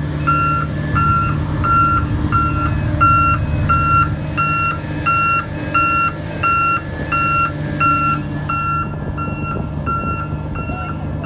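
Reversing alarm on a heavy road-construction machine beeping about twice a second, steady and unbroken, over the low steady running of its engine.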